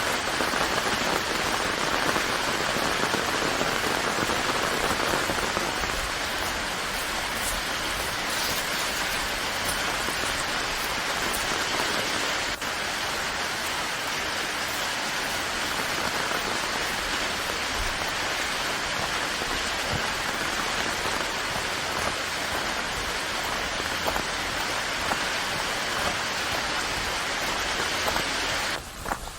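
Steady rain falling, a dense even hiss of drops on a surface. Near the end it briefly drops in level and thins.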